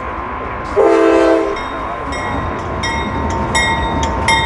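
CSX diesel freight locomotive approaching with a low rumble, sounding one short horn chord about a second in. From about two seconds in a bell rings repeatedly, roughly a strike every two-thirds of a second.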